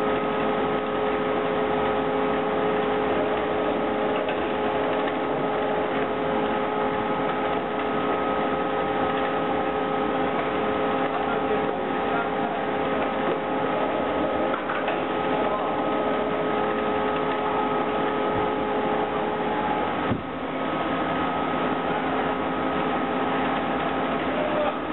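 LJT-4DNC digital-control paper tube winder running steadily, a constant mechanical running noise with several steady hum tones, briefly dipping about twenty seconds in.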